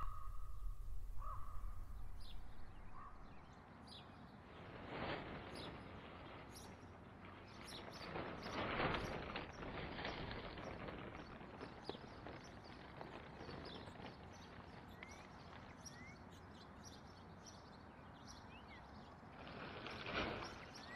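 Outdoor ambience: small birds chirping now and then over a steady rushing noise that swells a few times.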